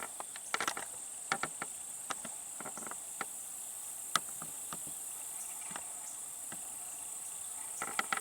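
Late-summer insect chorus, crickets or katydids, holding one steady high-pitched drone, with a scattering of faint sharp clicks and ticks over it, the sharpest about four seconds in.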